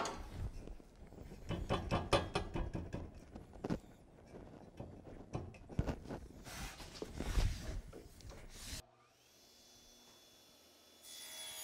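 A plywood board being slid and shifted on a table saw's top against the fence, giving irregular knocks and rubbing; the saw is not running. About nine seconds in the sound cuts off abruptly to a much quieter stretch.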